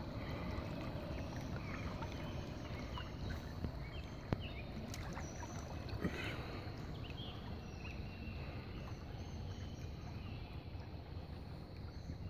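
Steady noise of a river flowing, with wind rumbling on the microphone.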